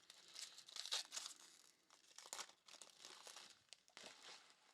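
Trading card pack wrappers crinkling and tearing as packs are opened, in a run of quick rustles loudest about a second in, with lighter crinkles and clicks after.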